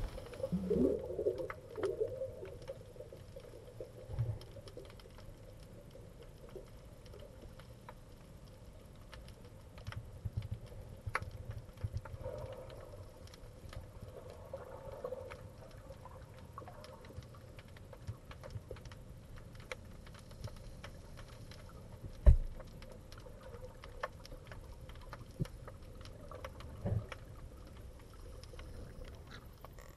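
Muffled underwater ambience picked up through a camera housing: a low rumble with scattered faint clicks, and one sharp knock about 22 seconds in.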